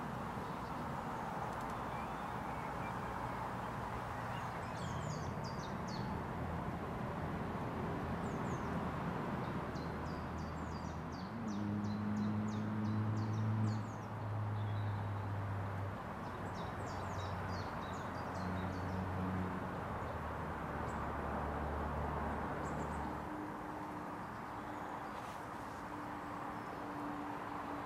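Outdoor pond ambience: a steady background hiss with small birds giving short high chirps in three spells, and a low distant engine hum that comes in before halfway, is loudest soon after, and fades away in the last quarter.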